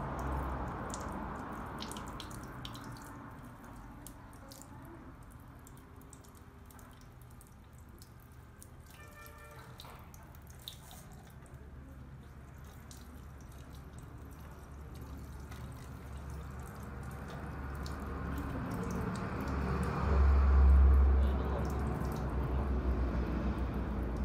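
Water from a hand-held shower sprayer running over hair into a shampoo basin, with dripping and small splashes. A low rumble swells near the end.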